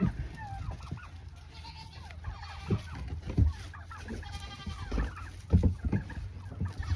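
Goats bleating a few times, with several dull thumps.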